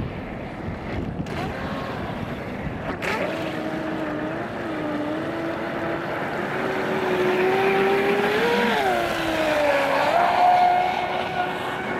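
Radio-controlled F1 catamaran model boat's motor whining as it runs at speed, its pitch rising and falling with the throttle. The pitch is highest about eight and a half seconds in, then drops and climbs again.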